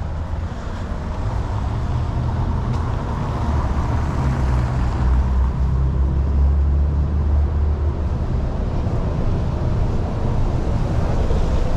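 Road traffic: a motor vehicle's engine rumbling close by, growing louder toward the middle and easing slightly near the end, over a steady street hiss.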